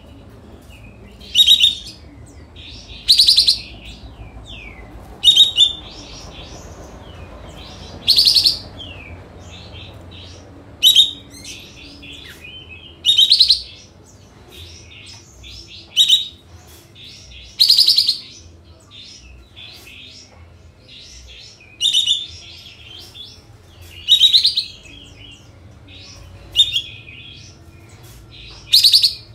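Kapas tembak (olive-winged bulbul) singing its loud, short 'shooting' call about a dozen times, roughly one every two seconds, with softer chirps in between.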